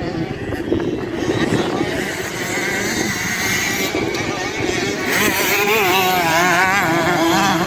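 Motocross bike engines running hard, with several bikes overlapping. Their pitch rises and falls rapidly as riders work the throttle, wavering most strongly in the second half.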